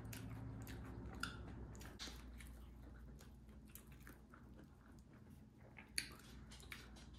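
A person quietly chewing a tough steak sandwich, with soft scattered mouth clicks and a sharper click about six seconds in.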